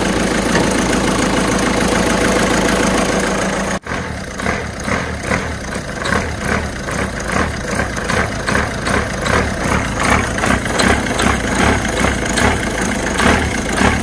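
Peugeot 207 engine idling, with the accessory drive belt squeaking because the belt is worn. About four seconds in the sound cuts and resumes as a rhythmic chirp repeating about twice a second.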